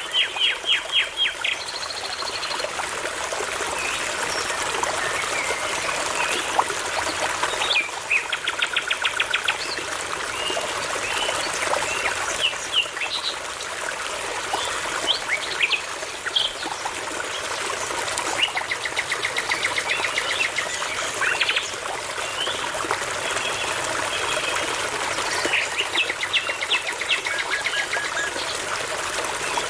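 Songbirds singing over the steady rush of a babbling brook. A fast series of repeated notes, about six a second, ends about a second and a half in; buzzy trills follow around 8 s, 19–21 s and 26–28 s, with scattered chirps between them.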